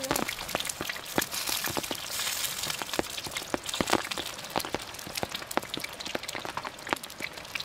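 Rain falling: an irregular patter of sharp drop taps over a light hiss.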